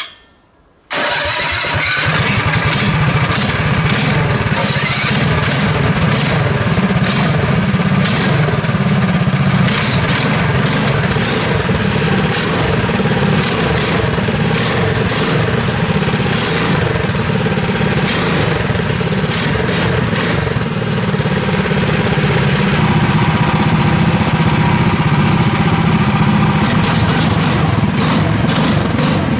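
Two Tillotson single-cylinder four-stroke go-kart engines started by electric start with a click of toggle switches, catching together about a second in and then running steadily side by side at idle through headers and mufflers.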